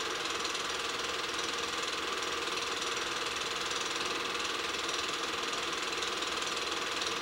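8mm film projector running, a steady mechanical clatter from its film drive.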